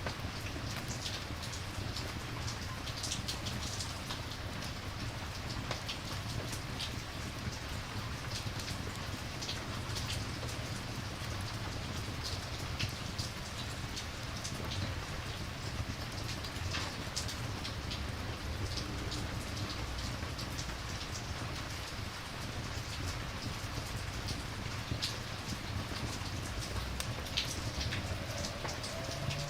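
Steady rain falling on a surface, with scattered sharp ticks throughout.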